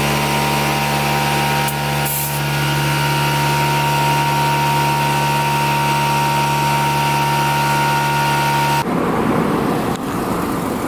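Air compressor running steadily with a constant whine to fill the truck's air-suspension bags, cutting off abruptly about nine seconds in, after which a rougher, noisier sound takes over.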